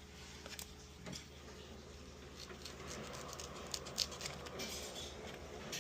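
Faint scattered clicks and light rustling from scissors cutting and hands handling Velcro strips.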